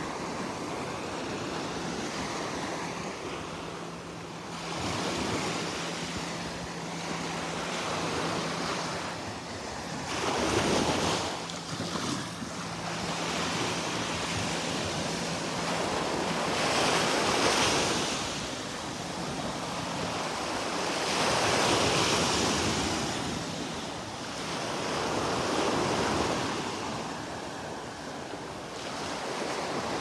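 Small waves breaking and washing up a sandy shore, the surf swelling and fading every five seconds or so.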